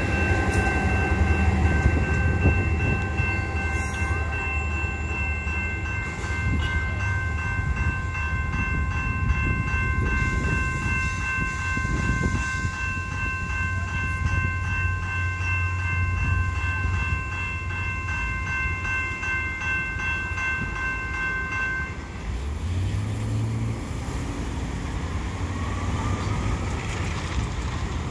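ALP45DP locomotive at the rear of an EXO bilevel commuter train rumbling past and moving away, while the level-crossing warning signal sounds steady tones. The warning stops about 22 seconds in, as the crossing clears, and a car then pulls away across the tracks.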